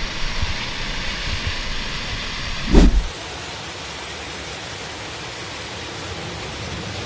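Steady rushing, rumbling noise, broken by a loud thump about three seconds in, after which a quieter, even rushing noise continues.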